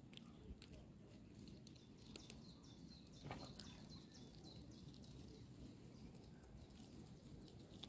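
Near silence: soft scattered clicks and crunches of a greylag goose pecking for food in gravel, over a faint low outdoor rumble.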